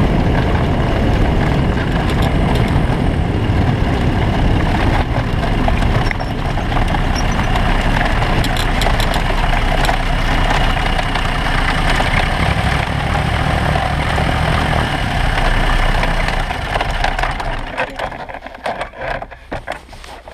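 Bautek Skycruiser microlight trike's engine and pusher propeller running at low power while the trike taxis on a grass strip. The engine winds down and stops about three seconds before the end.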